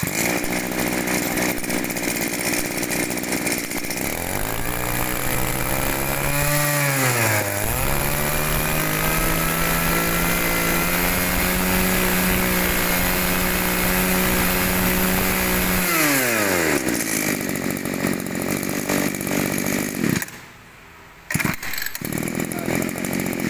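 Small petrol brush cutter engine running, then revved: the pitch climbs, dips briefly about seven seconds in, and is held at high revs for about eight seconds. It then falls back to a lower speed and cuts off suddenly near the end.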